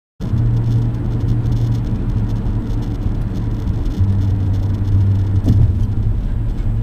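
Steady low engine and road drone inside a moving car's cabin, starting abruptly a moment in. The hum shifts in pitch about four seconds in.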